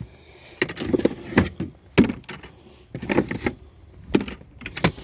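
Shopping being handled and unloaded from a car: a series of irregular knocks and clunks, about eight or nine, some with a short ring.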